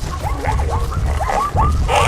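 Animal stampede sound effect: a continuous low rumble of running hooves, with many short yelping calls overlapping several times a second. A brief rushing crash comes near the end.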